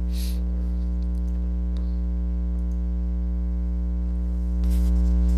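Steady electrical mains hum with a stack of overtones, stepping up slightly in level a little over four and a half seconds in.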